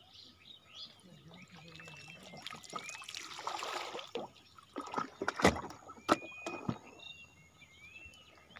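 Water swishing around a banana-trunk raft poled through floodwater, then a few sharp knocks past the middle. Birds chirp with short rising calls throughout.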